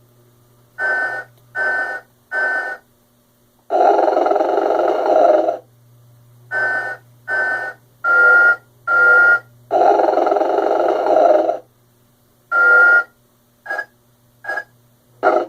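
Telco Motion-ettes Sleeping Snoring Santa Claus animated figure snoring and whistling through its built-in speaker. Two long snores of about two seconds each alternate with runs of three or four short whistling breaths. A low steady hum runs underneath throughout.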